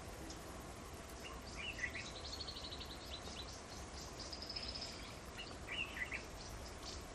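Small birds chirping and giving short, rapid high trills over a steady low background hum, with louder bursts of chirps about two seconds in and again near six seconds.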